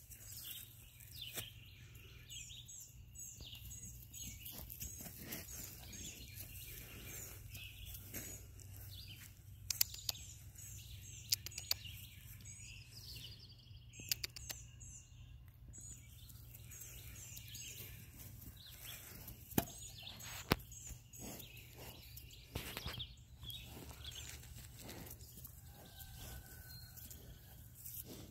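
Quiet outdoor ambience with a bird singing quick runs of high chirps, several times over, and a few sharp clicks around the middle, over a low steady rumble.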